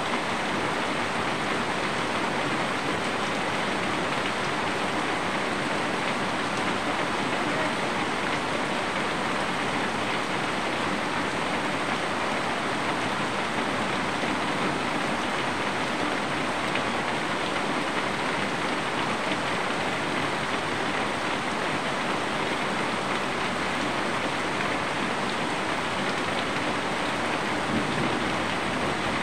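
Steady rain falling, an even hiss that holds constant with no let-up or separate drops standing out.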